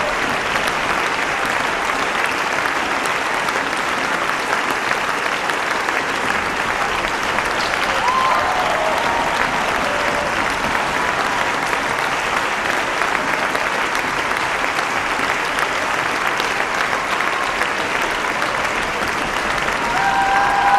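Large audience applauding, a steady, dense clapping that holds at one level throughout.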